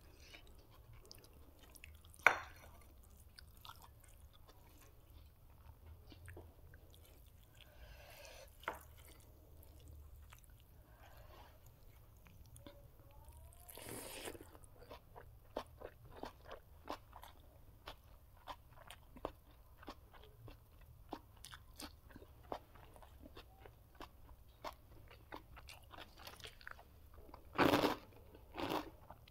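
A person chewing and crunching food close to the microphone, with many short crisp crackles and clicks. A few louder bites stand out, the loudest about two seconds in and another cluster near the end.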